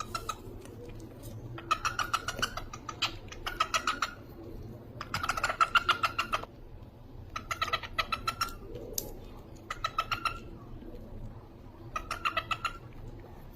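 Pet cockatiels chirping in about six short bursts, each a quick run of rapid repeated chirps.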